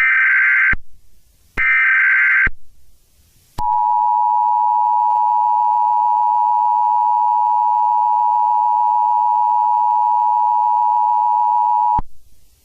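Emergency Alert System tones. First come two short bursts of the SAME header's digital data tones. After a pause the steady two-tone attention signal sounds for about eight seconds, then cuts off suddenly.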